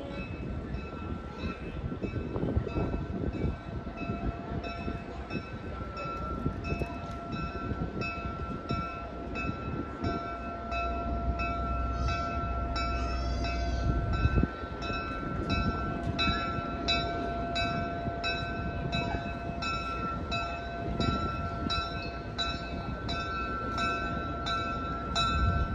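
A railway bell ringing steadily, struck more than once a second, over the low rumble of a slow-moving train.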